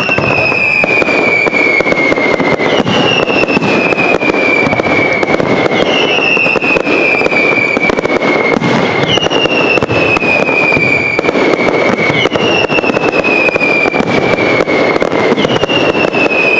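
Fireworks barrage with a dense, continuous crackle of bangs and pops. A high whistle that falls in pitch sounds over it, starting again about every three seconds.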